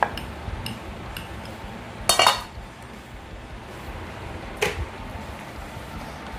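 Kitchen utensils knocking and clinking against a granite rolling board and a plate, as a steel rolling pin is put down and the rolled naan dough is moved onto the plate. There is a sharp knock at the start, a louder rattle of several knocks about two seconds in, and one more knock about four and a half seconds in.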